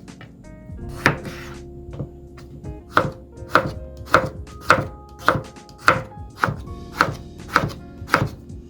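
Kitchen knife chopping food on a cutting board: a couple of scattered cuts, then a steady run of even strokes at about two a second from around three seconds in.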